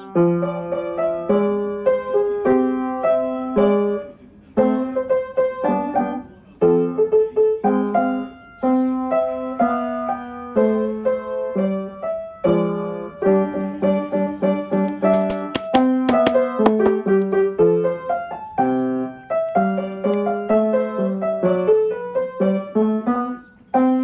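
Background piano music: a melody of single notes and chords.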